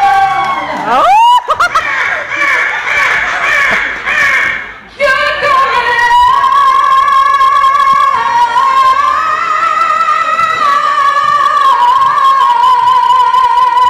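A woman singing loudly into a microphone: a quick upward swoop about a second in, then a long high note held for most of the rest, moving slightly up and down in pitch.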